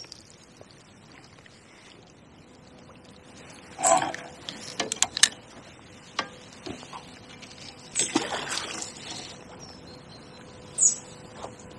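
Flowing river water in the background, with a few scattered handling clicks and rustles, the sharpest a quick run of clicks about five seconds in.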